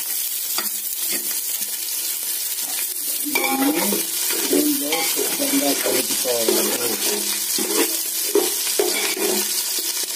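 Garlic cloves, mustard seeds and urad dal frying in hot oil in an aluminium pot: a steady sizzle, with a perforated metal spoon stirring and clicking against the pot. From about three seconds in, an indistinct voice runs under the sizzle.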